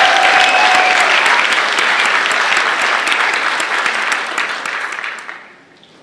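Audience applauding, with a few whoops in the first second; the clapping fades out about five seconds in.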